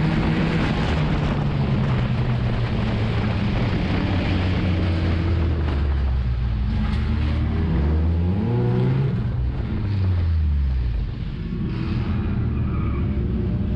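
Nissan enduro race car's engine heard from inside the cabin, running hard under racing load. About halfway through, its pitch drops, climbs again and drops once more as the throttle is lifted and reapplied, then it settles back to a steady pull.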